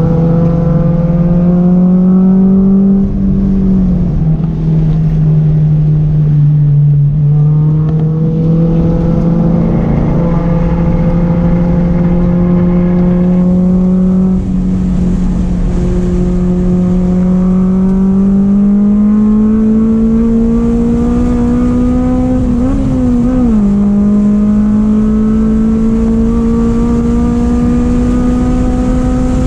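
Honda S2000's inline-four engine running hard at track speed, heard from inside the cabin. Its note climbs slowly in pitch and drops back several times, about 3, 7, 14 and 23 seconds in.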